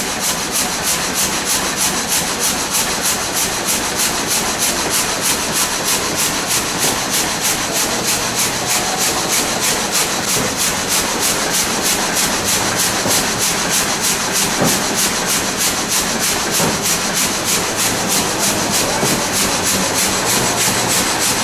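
Wood being rasped or sawn in a fast, steady rhythm of about four strokes a second.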